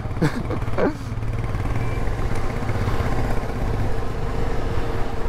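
Motorcycle engine running steadily as the bike rides along the road.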